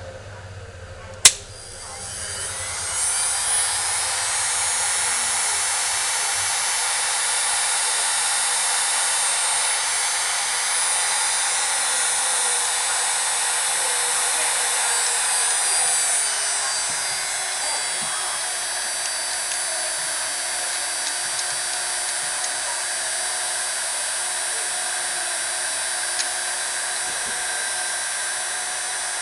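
Steinel HG 2310 LCD electric heat gun switched on with a click, its fan spinning up over a couple of seconds to a steady blowing hiss with a faint whine. About halfway through, the whine slides a little lower and the blowing gets slightly quieter as the fan settles to a lower speed, with a few faint button clicks after.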